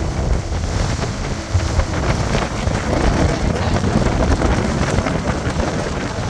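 Wind buffeting a phone's microphone on the open deck of a moving boat: a loud, gusting rush with heavy low rumble.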